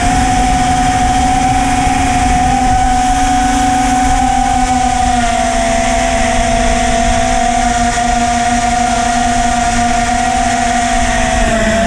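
Small FPV quadcopter's motors and three-blade propellers (iFlight Xing 1408 3600kv motors, HQ 3x5x3 props) whining steadily over a rushing noise, the pitch dipping briefly about five seconds in and again near the end.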